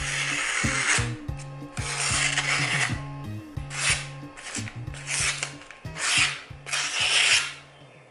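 A freshly sharpened kitchen knife slicing through a sheet of magazine paper in about six rasping strokes, each a second or less long. This is a paper-cutting test of the edge's sharpness.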